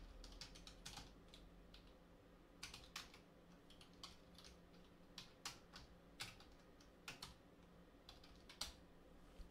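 Faint, irregular keystrokes on a computer keyboard: typing in short runs with pauses between them.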